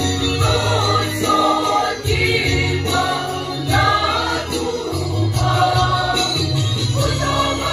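A mixed choir of men and women singing a gospel hymn together, with sustained low bass notes changing underneath the voices.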